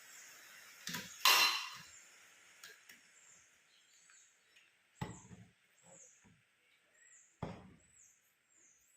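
Household handling noises: a few sharp knocks and taps of objects being set down, with a short hiss about a second in.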